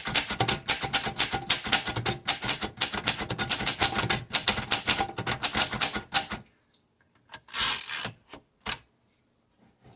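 1938 Royal Junior manual portable typewriter being typed on: a fast, steady run of keystrokes with type bars clacking, which stops about six and a half seconds in. After that there is a brief half-second noise and a few single clacks.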